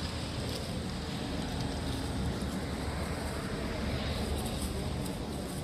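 Steady outdoor background noise: a low rumble under an even hiss, with no distinct calls or knocks.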